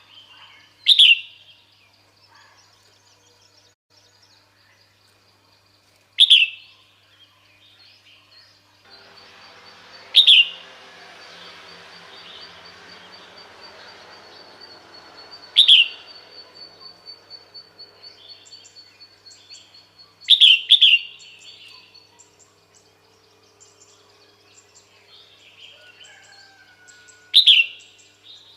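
Female red-whiskered bulbul giving short, sharp calls, each a quick downward sweep, repeated every four to six seconds, with two in quick succession about twenty seconds in. Softer chirping and a faint steady noise lie underneath.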